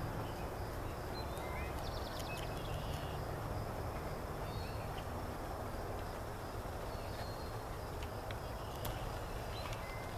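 Outdoor meadow ambience: scattered short bird chirps and a couple of rapid high trills, one about a second in and another near the end, over a steady low rumble.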